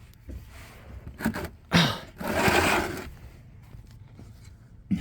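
Handling noise: a few short scrapes and knocks, then a breathy rush of noise lasting under a second about two seconds in, as the phone shakes and the man shifts while working the loosened drain plug.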